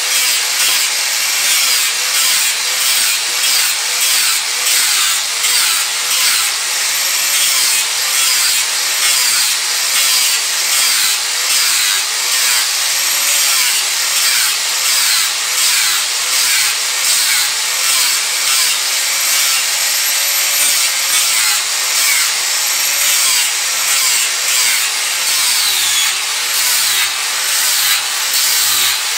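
Electric angle grinder with an abrasive disc grinding down a wooden spoon blank, the motor's whine dipping and recovering over and over as the disc is pressed against the wood and eased off.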